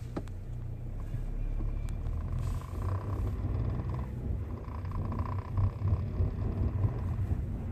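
Cabin noise of a Hyundai Avante AD (Elantra) diesel on the move: a steady low engine and road rumble, with faint ticks and clicks from a rattle inside the dashboard, a sign of poor assembly.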